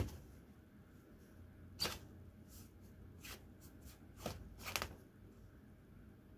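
Nylon pop-up cat tunnel rustling as a cat paws and pushes at its mesh window: a handful of short, crinkly rustles, the loudest about two seconds in and again near five seconds.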